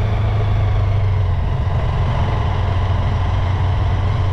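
Motorcycle engine running steadily at low speed, heard from the rider's position as a constant low hum.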